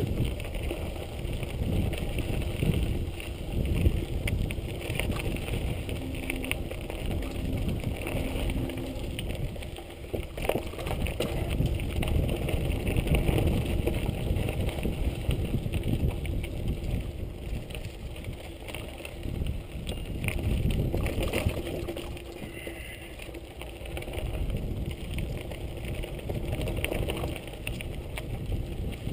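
Giant Boulder 0 29er mountain bike rolling over a rough dirt trail: tyres crunching over dirt and dry leaves, and the bike knocking and rattling over bumps, under a steady rumble of wind on the microphone.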